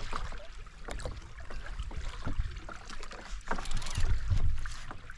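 Sea water slapping against a fishing kayak's hull, with scattered sharp clicks and knocks and a louder low rumble about four seconds in.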